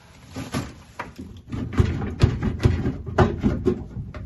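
Door glass of a 1967 Mustang knocking and clunking against the door's steel shell as it is worked upward to lift it out. It gives a run of hard knocks, thickest from about two seconds in.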